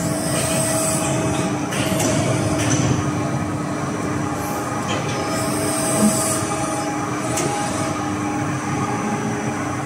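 Electric hybrid servo press brake running, its servo-driven hydraulic pump giving a steady hum with held whining tones while the ram travels. A few sharp clicks come in over the running noise.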